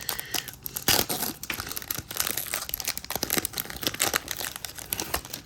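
Foil wrapper of a trading-card pack crinkling and crackling as it is handled and torn open.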